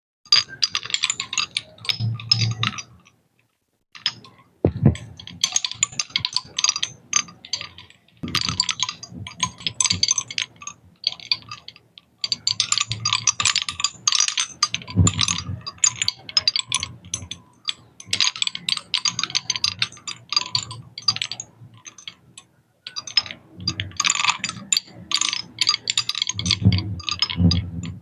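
Handmade seashell mobile clinking and rattling, the shells knocking against each other in a dense patter of small clicks. It comes in bursts a few seconds long with brief pauses between them.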